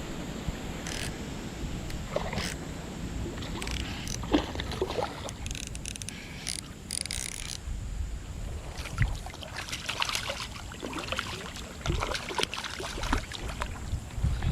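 Water sloshing and splashing with scattered clicks and handling noise as a hooked bass is brought in from the creek.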